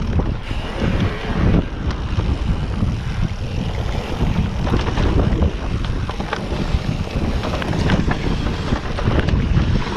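Wind buffeting the microphone of a moving mountain bike rider, over a steady rumble and scattered small rattles from the bike riding a dirt trail.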